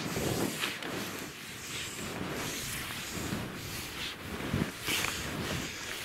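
Hunting skis crunching and swishing in loose, deep snow, one step every second or so, as a skier side-steps up a steep slope.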